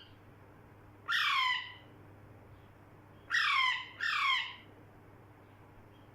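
Parrot squawking: three harsh calls, each about half a second long and falling in pitch, about a second in and twice more near the middle, the last two close together.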